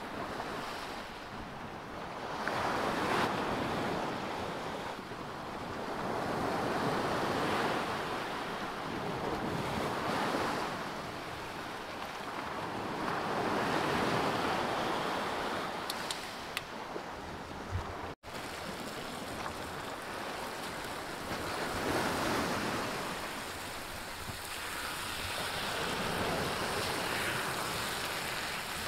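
Sea waves washing onto the shore, the surf rising and falling every three to four seconds. There is a momentary dropout about two-thirds of the way through.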